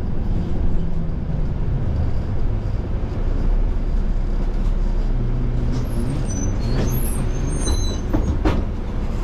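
City bus running, heard from on board: a steady low engine and road rumble, with a few brief high squeaks in the second half and a couple of knocks near the end.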